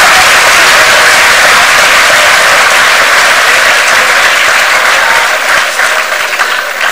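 Large audience applauding, a dense steady clapping that thins out near the end into scattered separate claps.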